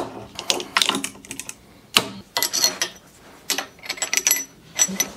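Metal parts and hand tools clinking and knocking on a steel workbench: a quick series of sharp clicks and taps, some with a short metallic ring.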